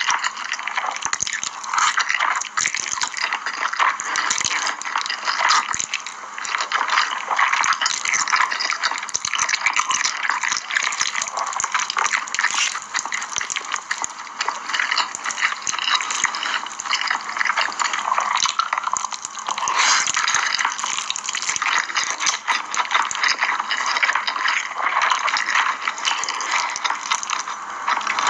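Close-miked eating sounds of spicy cheese instant noodles: continuous wet slurping and chewing, full of small smacking clicks.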